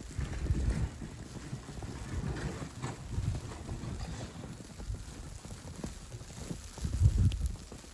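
Wind buffeting the microphone in gusts, loudest about half a second in and again about seven seconds in.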